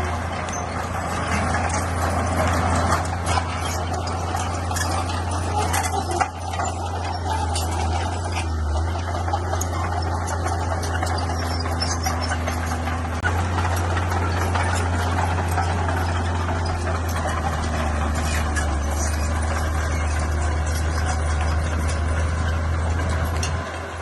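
Bulldozer's diesel engine running steadily under load, with scattered metallic clanks and knocks.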